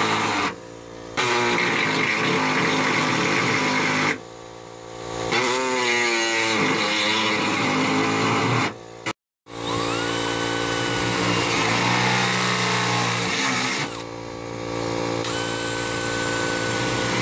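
Pneumatic body-cutting air tool running in bursts as it cuts a hole through sheet-metal fender. It stops and starts again a few times and winds back up to speed about five seconds in.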